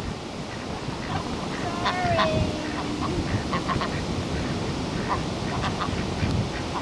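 A small flock of domestic ducks quacking in short, scattered calls over a steady wash of wind and surf noise.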